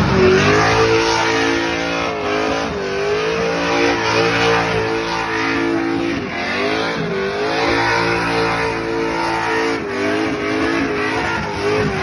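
Ford Maverick's 302 V8 held at high revs during a smoky burnout, the rear tyres spinning. The revs dip briefly three times and climb straight back.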